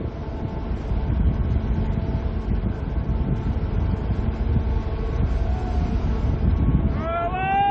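Steady low rumble of a large lake freighter passing close by. About seven seconds in, a horn starts sounding one steady note.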